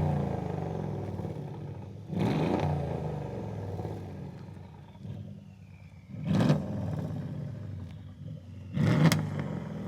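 Exhaust of a 2014 Mercedes-Benz E550's twin-turbo V8 with the mufflers deleted and the catalytic converters kept, heard at the rear of the car. The engine is blipped repeatedly: a rev is dying away at the start, then there are sharp throttle blips about 2, 6.5 and 9 seconds in, each dropping back to a deep idle.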